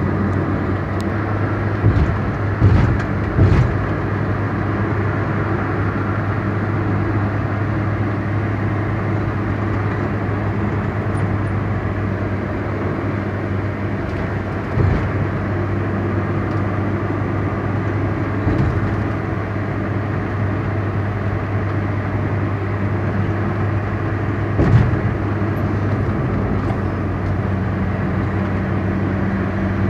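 A car driving along, its engine and road noise making a steady drone, with a few short thumps: three close together in the first few seconds and single ones about halfway and near the end.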